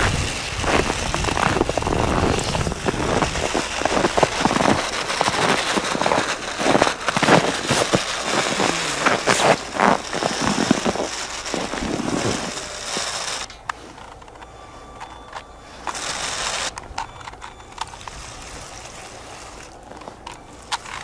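Lego train locomotive ploughing through deep snow on its track: crackling and crunching of snow packed against the train, with its small electric motor running. The sound drops much quieter about two-thirds of the way through.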